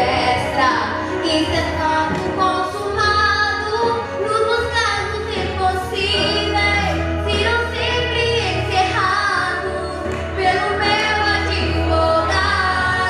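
Two girls singing a Portuguese-language gospel song with music behind them.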